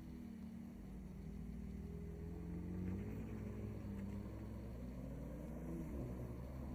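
Mercedes-AMG SLC43's twin-turbo V6 engine running at low revs, its note rising and falling gently a couple of times.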